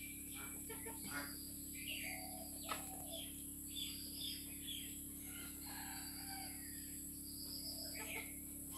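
Chickens giving short clucks and chirping calls again and again while pecking at scattered grain, over a steady high-pitched background drone. A single sharp click comes near the three-second mark.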